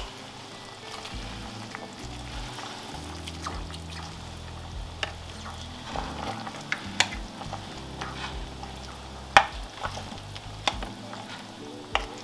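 A pot of soup bubbling on the boil while greens are stirred in with a spoon. The spoon knocks against the side of the pot several times, the loudest knock about nine seconds in.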